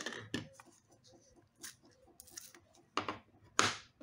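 Small clicks and scraping rubs of an SSD and its plastic shock-absorbing side pieces being handled and fitted into place, the two loudest scrapes about three and three and a half seconds in.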